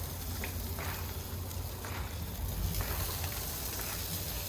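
Rib tips and skirt steaks sizzling on a grill: a steady crackling hiss with small scattered pops.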